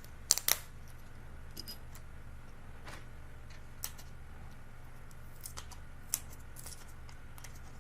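Small sharp clicks and taps of a repair tool working against an iPhone 8 Plus as the old charging-port flex is pried up from its adhesive. There is a quick cluster of clicks at the start, then single clicks about once a second, over a steady low electrical hum.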